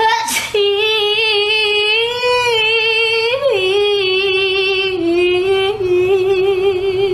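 A voice singing one long, high held note with vibrato. The pitch wavers slightly, bends up and then drops about halfway through, and the note is held on to the end.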